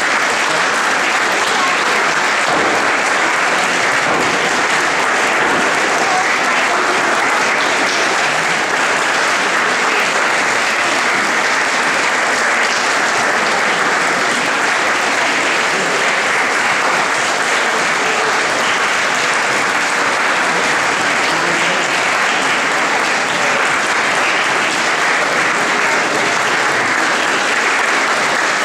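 Concert audience applauding steadily, a dense, even clapping that does not let up.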